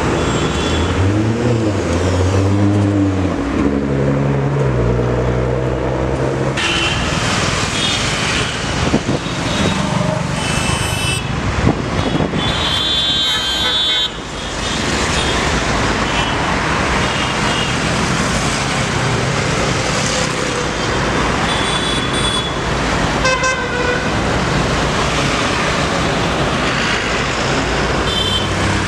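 Street traffic with car horns honking several times over a steady din of engines and voices.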